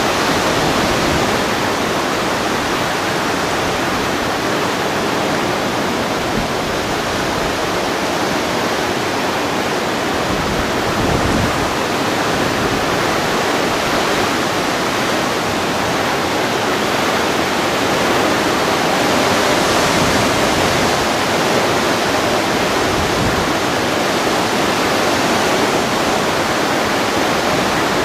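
Hailstorm with wind: a loud, steady, dense roar of falling hail and gusting wind.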